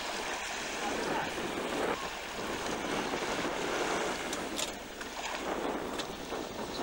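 Wind buffeting the camcorder's microphone in uneven gusts over the wash of a choppy sea.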